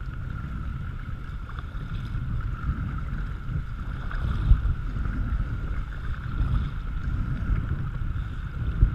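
Kayak being paddled on a river: paddle strokes and water washing against the hull under a steady rumble of wind on a deck-mounted microphone. Two brief thumps stand out, about halfway through and near the end.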